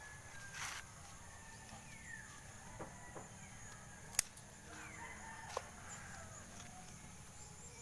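Faint rooster crowing, falling in pitch, with a few sharp clicks of scissors snipping sweet potato tops; the loudest snip comes about four seconds in.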